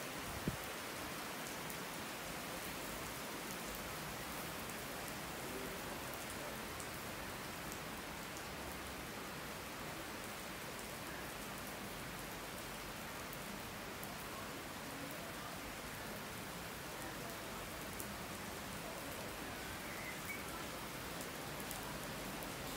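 Heavy rain falling, a steady hiss of rain on the station canopy and tracks, with one sharp tap about half a second in.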